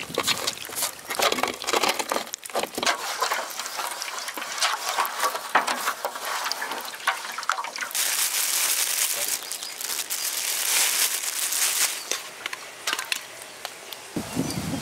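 A hand squishing and kneading flour and water into a wet batter in a metal plate, giving a run of quick wet clicks and crackles. For a few seconds in the middle a steady hiss takes over.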